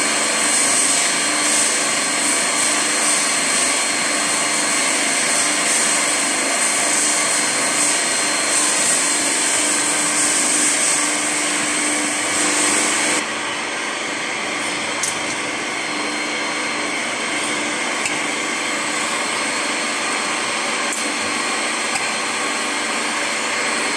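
Double-shaft paddle mixer running at speed, its paddles churning dry powder in a stainless steel trough: a steady machine noise with a strong hiss. About halfway through the hiss drops off abruptly, leaving a lower, steadier machine noise.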